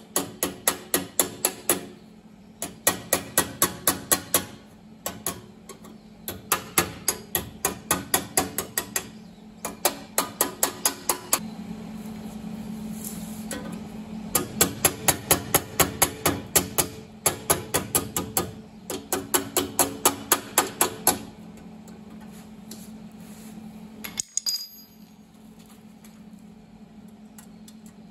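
Hand hammering on sheet steel, shaping a repair panel: quick runs of ringing metallic blows, about four a second, in bursts with short pauses between them. The hammering stops a little after the middle, leaving a low steady hum and a few light clicks.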